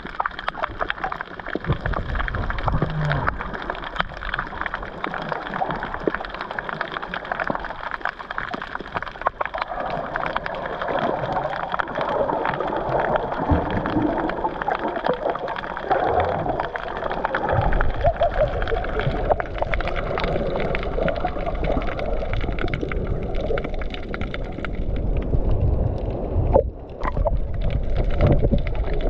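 Water sloshing and gurgling around a GoPro in its waterproof housing while snorkeling, muffled, with many small crackles and a low rumble.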